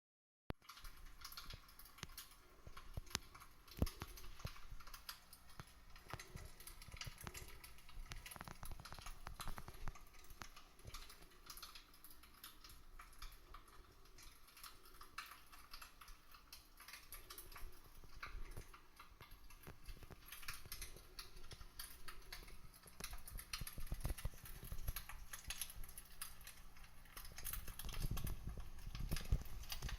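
Small wood fire crackling in a fire pit, with irregular sharp pops and snaps.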